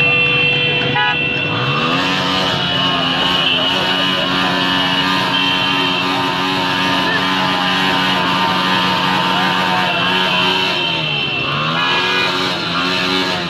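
Motorcycle engines running hard alongside the racing horse cart, their pitch rising as they accelerate about a second and a half in and again near the end.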